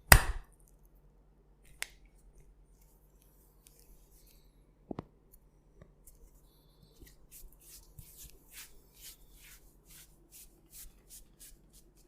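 Hands massaging a head and rubbing through hair. A single loud sharp smack comes right at the start, then two faint knocks. From about seven seconds in there is a quick run of crisp, crackly rubbing strokes, roughly two a second.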